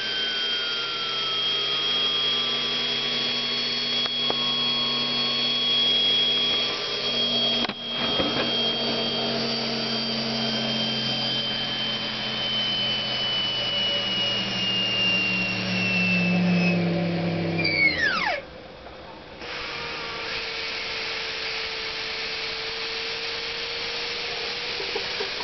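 Small homemade steam turbine spinning fast on steam from a torch-heated brass boiler: a high whine that slowly wavers in pitch over a hiss of steam. About three-quarters of the way through, the whine sweeps sharply down and the sound drops off, then a steadier hiss with a lower hum continues.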